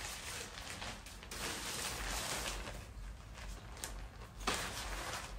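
Synthetic tent fabric rustling and crinkling as it is handled and unfolded, in uneven swishes with a few louder rustles.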